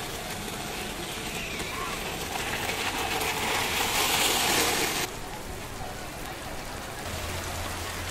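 Steam hissing out of a tako senbei press as its hot plates squash an octopus flat, swelling louder and then cutting off abruptly about five seconds in. Steady rain follows, pouring off awnings.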